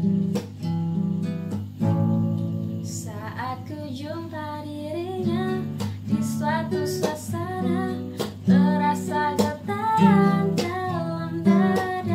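Acoustic guitar strummed in a steady rhythm, with a woman singing a melody over it from about three seconds in.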